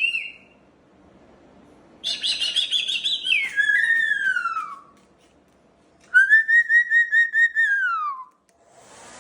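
Moluccan cockatoo giving two whistle-like calls: the first warbles and then slides down in pitch, the second is a wavering held note that falls away at its end. Near the end a hair dryer switches on with a steady hiss.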